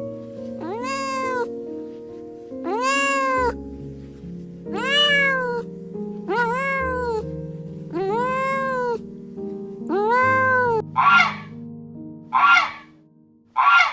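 A cat meowing repeatedly, about six drawn-out meows that rise and fall, over background music. Near the end, three short, harsh calls from a different animal follow.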